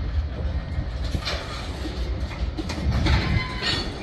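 Freight train of covered hopper cars rolling past close by: a steady low rumble of wheels on rail, with louder metallic clatter about a second in and again around three seconds in.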